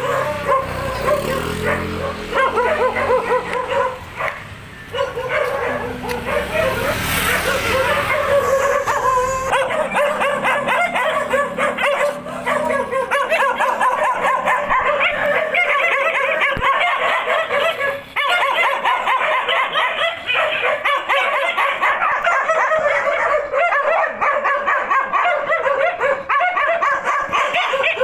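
Dogs barking and yipping without a break, many short calls in quick succession. A low rumble runs under them for roughly the first ten seconds.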